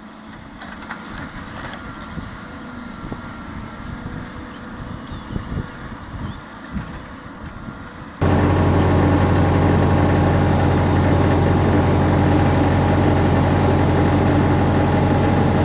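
Heavy machinery engines. A quieter stretch of irregular clunks and knocks over engine noise is followed, about eight seconds in, by a sudden switch to a loud, steady engine running with a deep hum.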